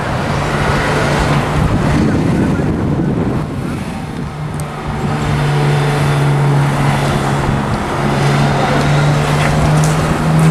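Street traffic: cars driving along a town's main street, over a steady low engine hum that cuts off suddenly near the end.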